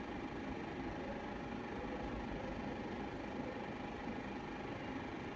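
Steady mechanical hum, even and unbroken, with a faint constant whine running through it.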